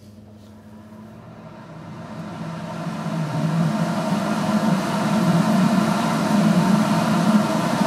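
Inline suction fan spinning up over the first few seconds, then running steadily with a low hum and a rush of air.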